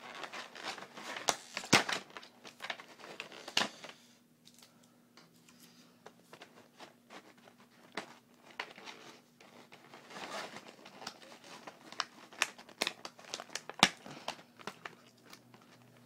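Tape being peeled off clear plastic blister packaging, the plastic crinkling, in irregular crackles and sharp snaps. It is busy for the first few seconds, goes quieter from about four seconds to ten, then picks up again.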